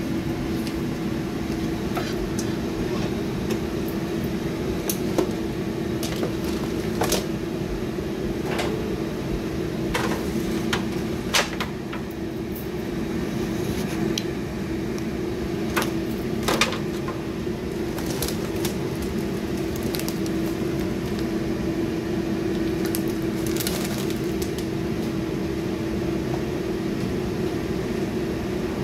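Steady motor hum with a constant pitch from a KitchenAid multicooker's stir tower turning its paddle through a thick rice mixture, with scattered sharp clicks and clacks.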